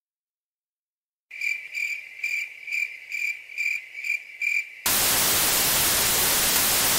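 After a second of silence, crickets chirp in an even high pulse about three times a second; near the five-second mark they cut off and loud, steady TV static hiss takes over.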